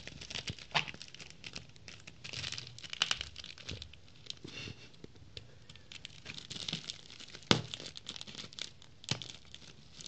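Plastic postal mailer bag being crumpled and torn open by hand: irregular crinkling with scattered sharp crackles, the loudest snap about three quarters of the way through.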